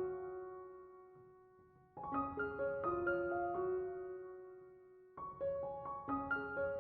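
Background piano music: gentle runs of notes, each ending on a held note that fades away, with a new run starting about two seconds in and again about five seconds in.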